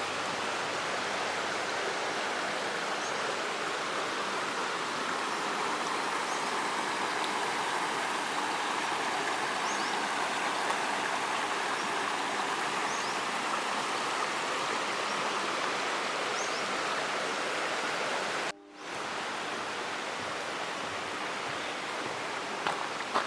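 Steady rushing of a flowing stream, with faint short high chirps repeating every few seconds; the sound drops out for a moment near the end.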